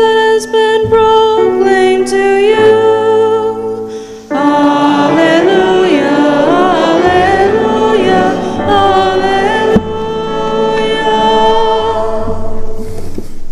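Church music for the Gospel acclamation: a keyboard holding sustained chords, with singing carrying a melody with vibrato from about four seconds in to about ten seconds in, then the keyboard chords going on alone.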